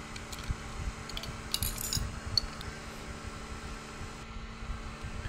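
Light clicks, taps and a brief scrape as the small plastic and metal parts of a handheld mini fan are handled and fitted together, with a sharp tick about two and a half seconds in. A steady low hum runs underneath.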